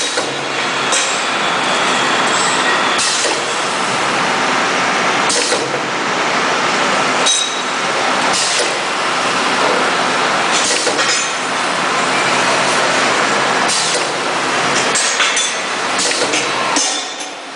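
BG60A-6C pneumatic cup fill-seal machine running: a steady hiss with a sharp clack every second or two as its pneumatic stations cycle.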